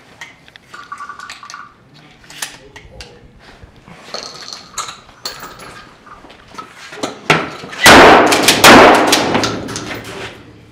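Two shots from a Remington Tac 14 pump-action shotgun, about three quarters of a second apart, each very loud and ringing off the walls as it dies away. Lighter knocks and clicks of handling and movement come before them.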